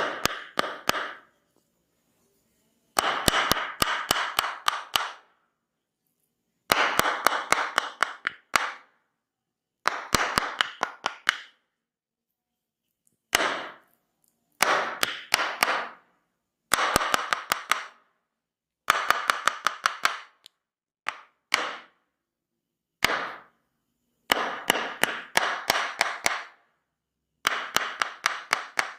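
Rapid percussive massage strikes on the body, several sharp taps a second, in short bursts of a second or two with brief pauses between.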